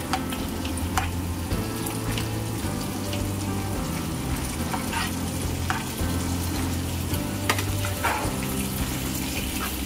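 Chunks of meat sizzling as they fry with garlic in a frying pan, stirred with a spatula that clicks against the pan a few times, over a steady low hum.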